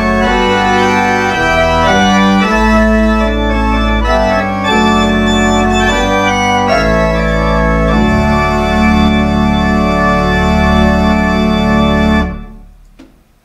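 Church pipe organ playing slow sustained chords that change every second or so, ending on a long final chord held for about four seconds. The chord stops near the end, and the church's reverberation dies away over about a second.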